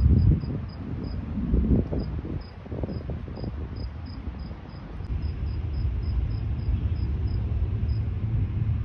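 A cricket chirping steadily, about two to three short high chirps a second, over a low outdoor rumble that swells briefly at the start and about a second and a half in.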